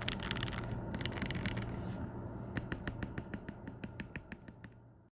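Computer keyboard keys being typed: a quick flurry of keystrokes, a short pause, then a run of evenly spaced key clicks that grows fainter, over a low steady hum.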